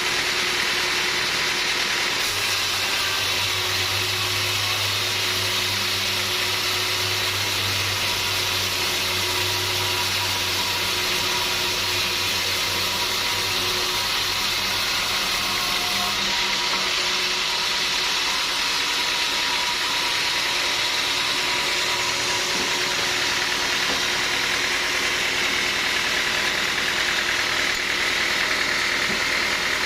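Sawmill machinery running, a steady mechanical noise with a low hum through the first half.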